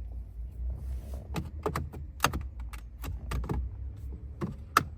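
Plastic clicks and knocks as a Chevrolet Malibu's climate control panel is pulled and worked loose from the retaining clips in the dash. There is a rapid run of sharp clicks from about a second in, over a low steady hum.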